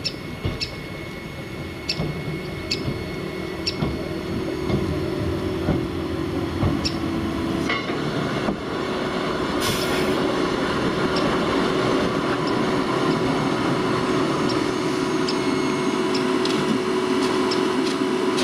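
Narrow-gauge battery-electric locomotive running slowly on 2 ft gauge track: a steady electric motor whine with wheel clicks over the rail joints, growing louder as it comes close. A brief hiss comes about ten seconds in.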